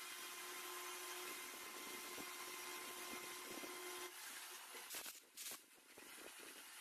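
A workshop machine's motor hums steadily with a faint whine, then stops about four seconds in; two short knocks follow about a second later.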